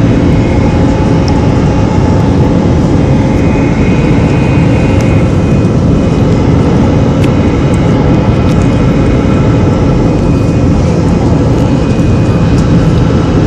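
Cabin noise of an Airbus airliner climbing after takeoff: its jet engines run at climb power, a loud, steady roar heard from inside the cabin near the wing, with a faint high whine over it.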